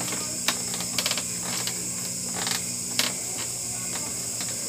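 Homemade barbell clicking and clacking as it is lifted: the metal bar knocks against its weights, about seven sharp clicks, some in a quick cluster, over a steady high hiss.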